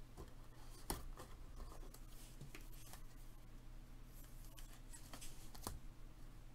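Faint rustle and slide of trading cards being handled and flipped through by hand, with two light taps, about a second in and near the end, over a low steady hum.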